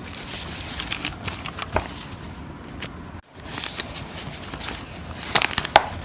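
Keyboard packaging being handled and opened: rustling and crinkling with many sharp crackles, and a burst of louder crackles near the end. The sound cuts out for an instant about three seconds in.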